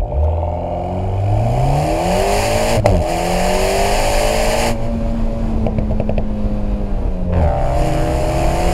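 Alpine A110's 1.8-litre turbocharged four-cylinder running through a QuickSilver sports exhaust under hard acceleration. The revs climb, a sharp crack comes at an upshift about three seconds in, and the revs climb again. It eases off a little before five seconds with a few faint pops, then pulls and rises again near the end.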